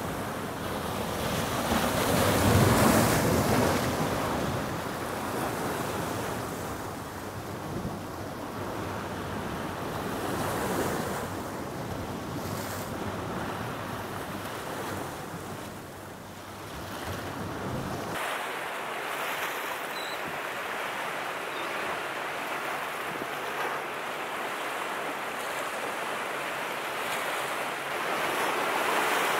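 Ocean surf washing and breaking, with a louder wave a few seconds in. Wind rumbles on the microphone until it drops away about two-thirds of the way through.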